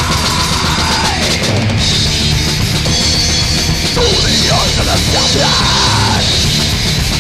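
Demo recording of an extreme metal band playing: distorted guitars, bass and drums, continuous and loud.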